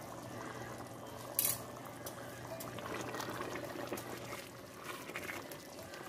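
Thick tomato ragu bubbling at a simmer in a pot while a spoon stirs through it, with a short sharp rasp about one and a half seconds in.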